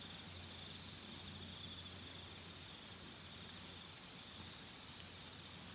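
Quiet rural ambience: a steady high-pitched insect trill over a faint even hiss, with a low hum that fades about halfway through.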